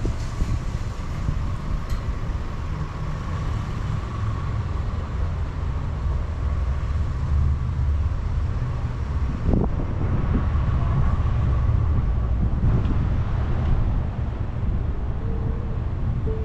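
A car driving, heard from inside the cabin: steady low engine and road rumble.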